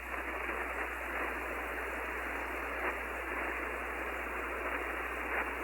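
Amateur radio receiver on 10 m single sideband hissing with steady band noise in the pause between transmissions, no signal coming through, over a faint steady hum.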